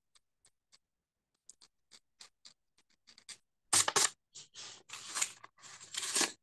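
Craft-knife blade scratching dried ink off egg-glazed ahar paper to erase part of a calligraphy stroke. It starts as faint scattered ticks, then about halfway through turns into several louder scraping strokes.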